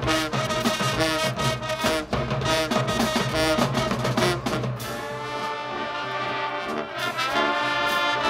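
Middle school marching band playing: brass over a steady drum beat for about five seconds, then the brass holding long chords with the drums dropping back.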